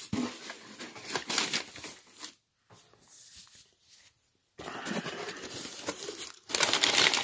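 Cardboard box flaps being opened and crumpled packing paper rustling and crinkling as it is handled, with a brief pause in the middle; the crinkling is loudest near the end.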